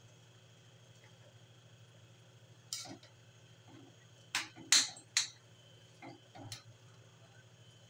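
Spatula scraping and knocking against an aluminium wok as a coconut-milk stew is stirred: about six short strokes, starting about three seconds in, over a steady low hum.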